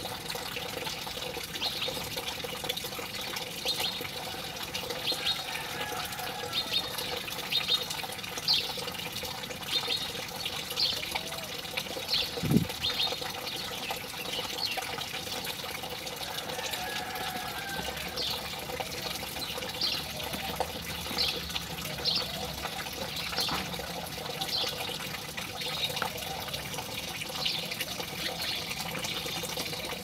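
House sparrows chirping again and again in short, quick notes over a steady rush of running water. There is one dull thump about twelve seconds in.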